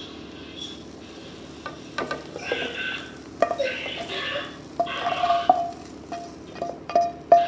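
Stir-fried garlic scapes and pork strips being scraped out of a non-stick wok into a serving dish. A spatula scrapes across the pan in several strokes, and sharp knocks of spatula on pan come through, the loudest near the end.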